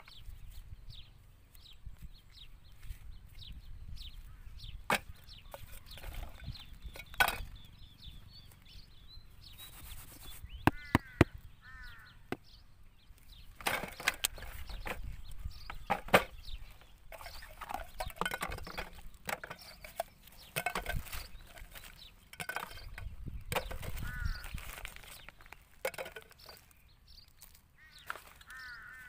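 Plastic bags and rubbish rustling and crinkling as they are sorted by hand, with sharp knocks and clatters as plastic items are dropped into a plastic bucket.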